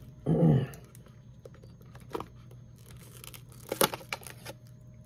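Shiny foil-style popcorn bag crinkling as it is handled at its gathered top, with scattered sharp crackles, the loudest near four seconds in. A short hummed voice sound comes right at the start.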